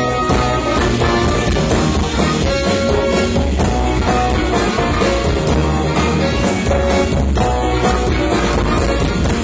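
Loud band music playing without a break, with held notes over a strong bass.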